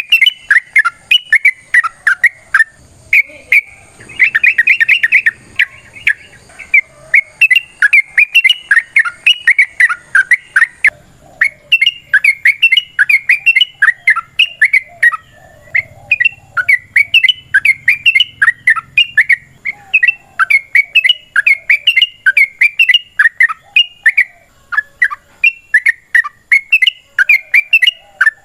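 Yellow-vented bulbul (trucukan) singing a long rapid run of short, bubbly chirping notes, several a second, pausing briefly about eleven seconds in before carrying on.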